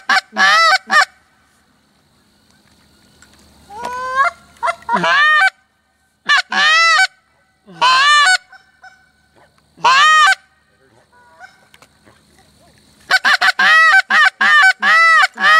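Loud goose-like honking calls in short arched notes: a quick group of three at the start, single notes and pairs through the middle, and a rapid run of about eight notes near the end.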